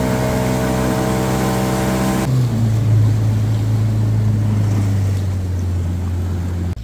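Evinrude 115 outboard motor running steadily as the boat travels under way, a steady engine hum with water and wind noise over it. About two seconds in the sound changes to a lower, steadier drone.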